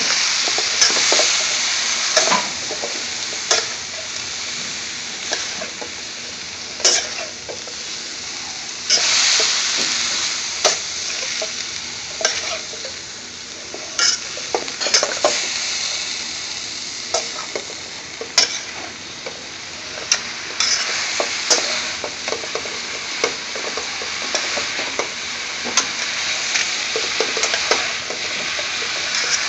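Sliced uri beans and potatoes sizzling in hot oil in a wok while a metal ladle stirs and scrapes them, with sharp clinks of metal on the pan every second or two over the steady sizzle.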